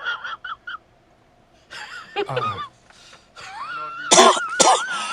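A man's put-on coughing fit, faked to pass as sick with the coronavirus: loud hacking coughs with a wavering wheeze start about four seconds in, after a few short throaty vocal sounds.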